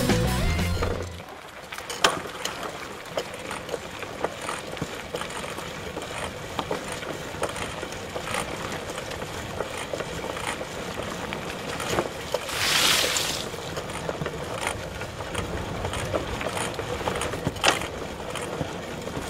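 Mountain bikes riding on a trail: scattered clicks and knocks from the bikes over a steady hiss, with a brief rush of noise about two-thirds of the way through.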